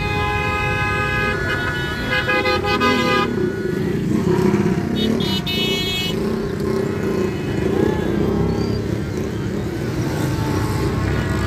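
Horns blaring in heavy road traffic: one long, steady blast for about the first three seconds, then a shorter, higher toot about five seconds in. Car and motorcycle engines rumble steadily underneath.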